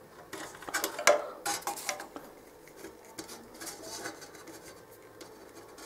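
Metal multimeter test probes and wires being handled against the welder's switch terminals and steel casing: a quick run of light clicks and clinks in the first couple of seconds, then scattered softer ones.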